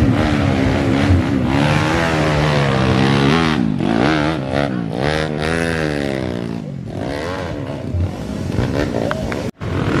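Enduro dirt bike engine revving hard, its pitch rising and falling again and again as the throttle is worked on a hill climb. The sound cuts out for an instant near the end.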